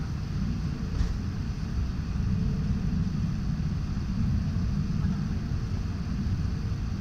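Steady low rumble inside a jet airliner's cabin as it taxis, with a faint steady hum over it and one light click about a second in.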